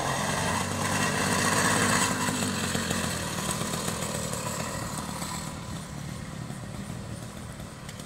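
Small single-cylinder two-stroke engine of a 66cc motorized bicycle kit running with a fast, buzzing pulse. It is loudest about two seconds in, then slowly fades.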